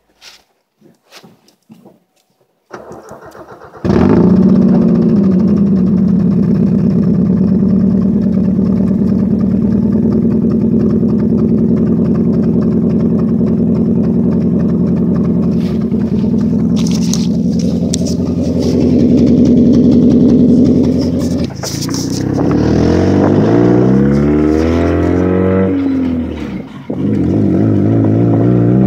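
A 1997 Kia Sephia's four-cylinder engine cold-starts through a straight-piped exhaust. After a few faint clicks it cranks for about a second, catches about four seconds in and runs at a steady, loud idle. Later the car is driving, heard from inside the cabin: the engine rises and falls in pitch as it revs through the gears, with a short drop near the end at a gear change.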